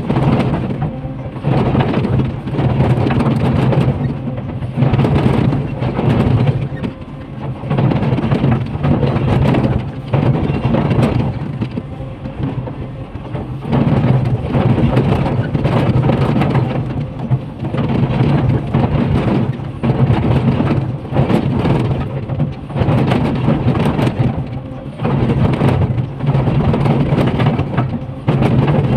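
Komatsu PC500LC hydraulic excavator's diesel engine running hard under load as its bucket rips into a rock face, with rock crashing and grinding in irregular loud surges every second or two.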